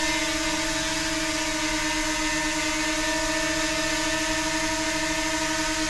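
DJI Mini 2 quadcopter hovering on its original stock propellers: a steady whine of the spinning props and motors over a rushing hiss of air.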